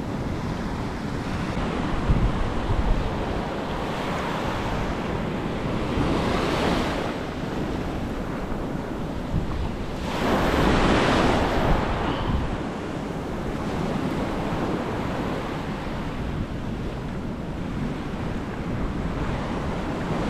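Small waves breaking and washing up a sandy beach at close range, with two louder surges of wash about a third of the way in and about halfway through. Wind buffets the microphone.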